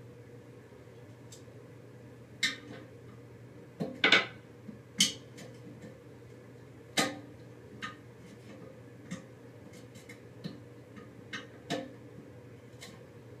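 Irregular clinks and knocks of a wrench and fill-valve parts being worked on a toilet. The loudest few come in the first half, over a steady low hum.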